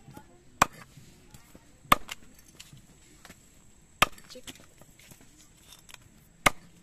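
A heavy knife chopping through a grass carp into a wooden log block: four sharp chops at uneven gaps of one to two and a half seconds, with a few fainter knocks between.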